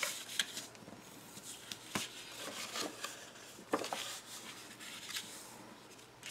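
Scored patterned craft paper being folded and creased by hand along its score lines: soft rustling with scattered light taps and crackles, the sharpest about two seconds in and again near four seconds.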